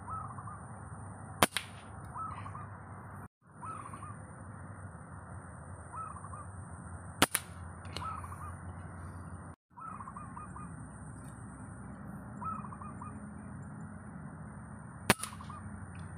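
Three sharp rifle shots from a scoped pest-control rifle, each a single crack several seconds apart. Between them a bird calls over and over in short phrases of a few quick notes, over a faint steady high whine.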